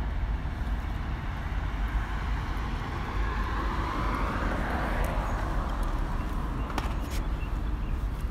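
Road traffic ambience: a continuous low rumble, with a passing car's noise swelling and fading about halfway through. A couple of light clicks come near the end.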